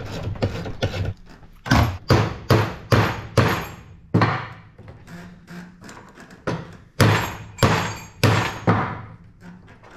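Hammer blows driving a tight-fitting steel bolt through a hollow pole and fishing sinker clamped in a bench vise. About a dozen sharp strikes in uneven bunches, starting about a second and a half in, each with a short metallic ring.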